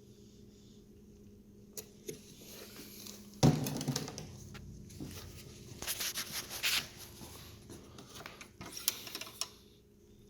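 Handling noises while working on a lawn mower: a sharp knock about three and a half seconds in, followed by scattered clicks, scrapes and rustles over a faint steady hum.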